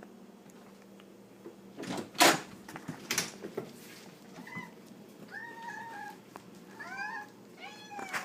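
Two loud scraping or banging noises about two and three seconds in, then a cat meowing in a string of about five short meows through the second half.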